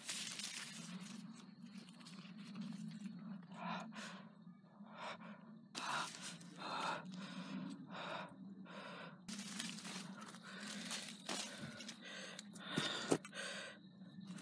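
Dry cornstalks and their papery leaves rustling and scraping against the camera in repeated bursts as someone pushes through them, with a person breathing hard.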